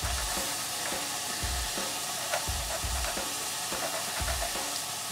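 Mushrooms frying in a pan with a steady sizzle, and a kitchen knife slicing cured sausage on a plastic cutting board, giving dull knocks about once a second.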